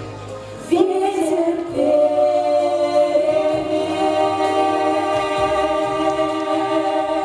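Choir of voices singing, rising into one long held chord that starts about a second in.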